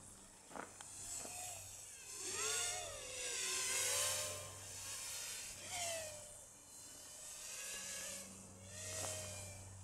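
1S toothpick FPV quadcopter's brushless motors buzzing, the high whine sliding up and down in pitch with the throttle and loudest about four seconds in. A steady low hum runs underneath.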